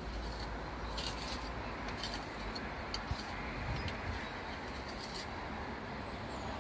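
Short scratchy scrapes of a small steel pointing trowel working burnt sand mastic into the joint around a window frame. A steady low background rumble runs underneath.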